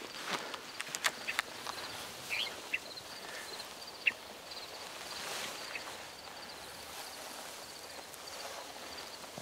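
Slow footsteps and the rustle of camouflage clothing and gear brushing through prairie grass, with a few sharp clicks and taps in the first two seconds. A faint high chirping repeats evenly throughout.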